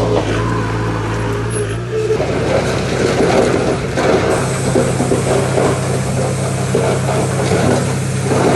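Heavy diesel earthmoving machinery running steadily, its engine note changing about two seconds in. Dense clattering and rattling follow.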